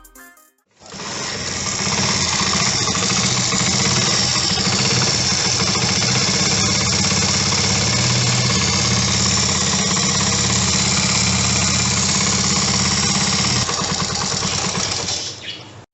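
Honda CD 70's single-cylinder four-stroke engine idling steadily, with the timing chain noise typical of a worn tensioner. It starts about a second in and cuts out just before the end.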